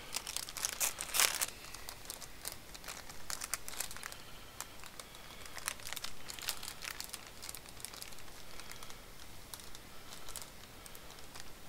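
Plastic packaging crinkling and crackling as a bag of MOSFET component tubes is handled, in irregular crackles with a louder burst about a second in.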